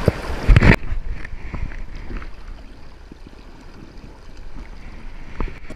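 A loud rumble of wind and handling on the microphone in the first second, cut off abruptly, then quieter river water splashing and trickling with small scattered ticks around a hand releasing a trout in the shallows.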